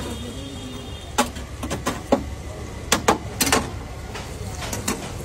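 A metal spatula knocking and scraping against a pan while shaping a foamy omelette, a scattered series of sharp clicks over steady background noise.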